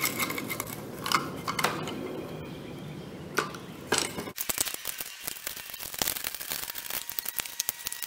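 Hand-cranked eggbeater drill boring a hole into the end of a wooden board: the bit rasps in the wood and the gears click, with a few sharp knocks of handling. About four seconds in the background drops away and quick, dense ticking follows.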